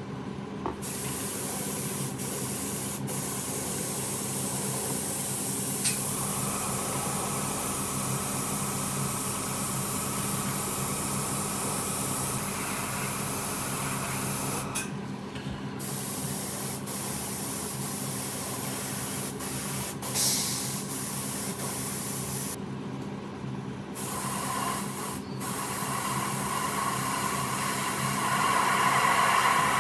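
Airbrush spraying paint: a steady hiss of air and paint, in long bursts with two short pauses, about halfway through and about three-quarters through. A steady low hum runs beneath.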